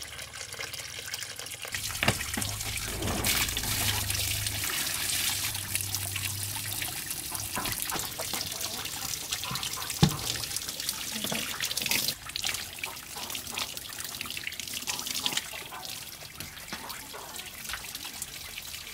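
Water pouring from a pipe into a plastic bucket full of persimmons, splashing and trickling steadily, with two sharp knocks, about two seconds in and about ten seconds in.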